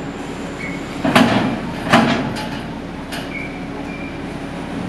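Loud metallic clanks as cars drive off the car ferry over its steel loading ramp, their wheels striking the ramp's plate joints: two clanks about a second in and under a second apart, then a few lighter knocks. A steady machinery hum from the ship runs underneath.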